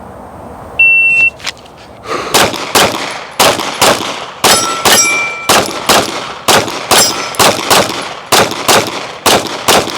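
A shot timer's start beep about a second in, then a 9mm Glock 45 pistol fired rapidly in pairs for about seven and a half seconds, with steel targets ringing as they are hit.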